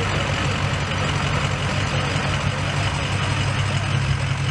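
Lifted Ford Super Duty pickup's diesel engine idling as the truck creeps forward, a steady deep rumble.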